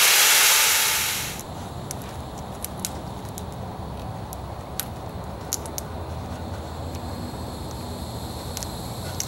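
Cordless drill briefly grinding through a fiberglass boat transom, cutting off about a second and a half in. After it come faint handling noises and a few light clicks as the transducer cable is worked through the new hole.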